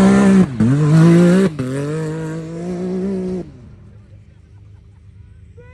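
Pickup truck engine revving high, its pitch dipping briefly twice, then dropping away suddenly about three and a half seconds in, leaving a faint low rumble.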